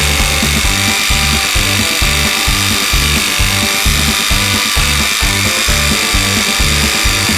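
Background music with a steady beat, over the high buzz of an electric scroll saw cutting wood.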